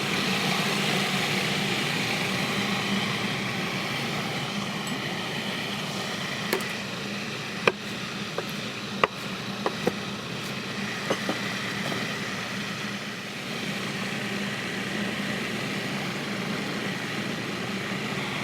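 Countertop blender running steadily, pureeing sprouted garbanzo beans, garlic and lemon juice into hummus, with a few sharp ticks in the middle.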